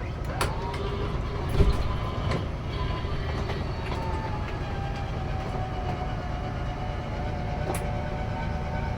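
Travel trailer's electric slide-out mechanism running as the slide-out room retracts: a steady mechanical rumble with a faint whine that slowly sinks in pitch, and a single knock about a second and a half in.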